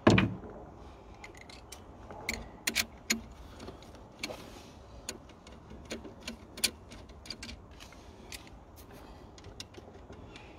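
A socket wrench undoing the 13 mm nut on the alternator's output terminal: a knock as the socket goes on, then irregular small metallic clicks and clinks.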